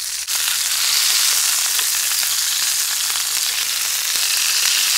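Beef burgers sizzling in a Trangia frying pan over its burner: a steady loud hiss with small crackles.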